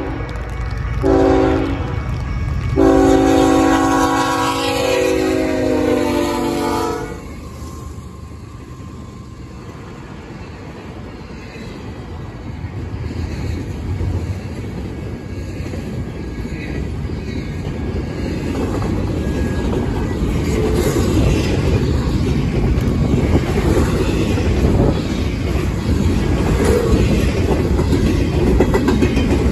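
Nathan K5HL five-chime horn on a BNSF ET44C4 locomotive sounding the close of a grade-crossing signal: the tail of a long blast, a short blast, then a long blast whose pitch drops as the locomotive passes about seven seconds in. The double-stack intermodal cars then roll by, their wheels rumbling and clacking on the rails and growing louder.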